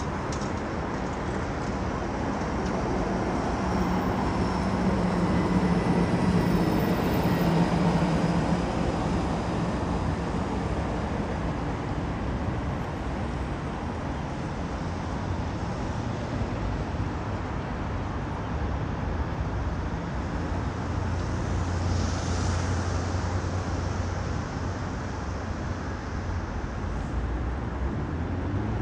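Street traffic: a steady din of road vehicles, with one passing close and loudest about seven seconds in and another low engine hum swelling around twenty-two seconds in.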